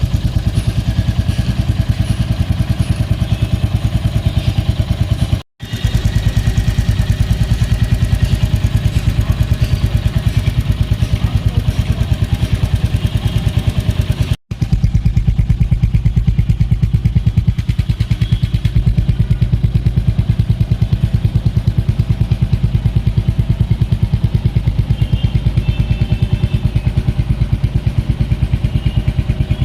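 Royal Enfield Hunter 350's single-cylinder engine idling steadily through its stock exhaust, an even low thudding beat with no throttle applied. The sound drops out for a split second twice, about five and fourteen seconds in.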